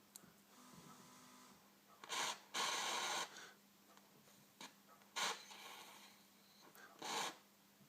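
Breath blown through a drinking straw onto a candle flame, used as a mouth blowpipe to make the flame hot enough to solder a silver ring. There are four breathy puffs, the longest nearly a second, with soft breathing between them.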